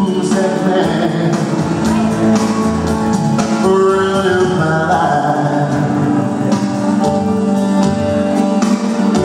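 A man singing a country song into a microphone over instrumental accompaniment, amplified through a PA in a large hall.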